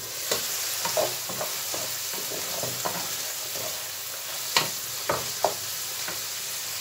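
Diced chicken breast and onions sizzling in oil in a frying pan while a wooden spoon stirs them, knocking and scraping against the pan. The sizzle gets louder at the start as the lid comes off, and there are a few sharper spoon knocks about two-thirds of the way through.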